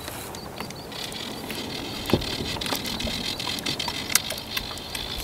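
Fly reel's click drag buzzing steadily for about five seconds, starting about a second in, as line runs through it while a hooked rainbow trout is played. Scattered sharp clicks run through it.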